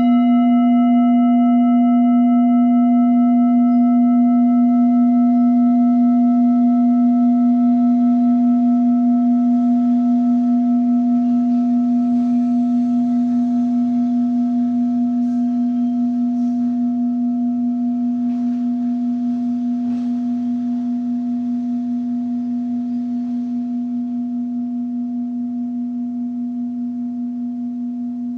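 Singing bowl struck once, then left ringing: a strong, steady low hum with several higher overtones that fade away within the first few seconds. The hum carries on with a slow, regular pulsing wobble and gradually dies down.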